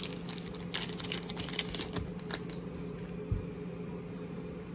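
A clear plastic card sleeve crinkling and ticking as a hockey card is slid into it. The light crackles are busiest in the first half, with one soft thump later, over a steady low room hum.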